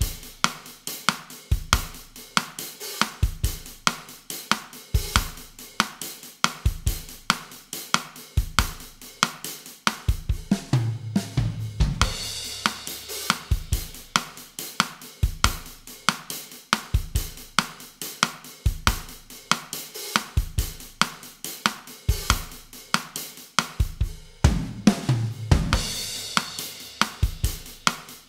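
Drum kit alone playing a bossa nova groove at 140 bpm, with steady hi-hat and cymbal strokes over bass drum and snare. A short fill comes twice, about eleven seconds in and again near the end.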